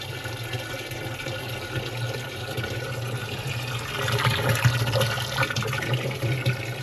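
Water running from a tap, with a steady low hum underneath. The running water grows louder and more splashy about four seconds in.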